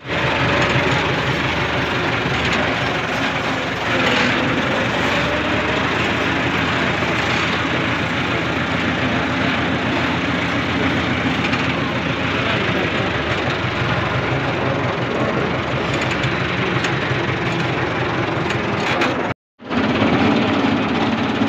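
Tractor engine running steadily under way, heard from the driver's seat. The sound cuts out completely for a moment about two seconds before the end, then resumes.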